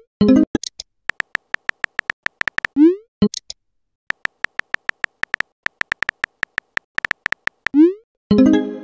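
Texting-app sound effects: runs of quick keyboard tap clicks, several a second, broken twice by a short rising swoosh and a brief pitched pop as a message is sent. Near the end a pitched chime rings out and fades.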